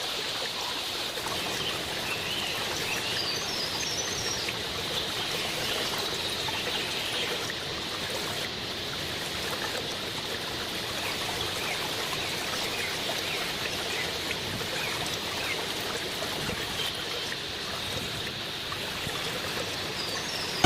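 Steady rush of falling and flowing water at the Timbulun waterfall, with a few faint high chirps around four seconds in.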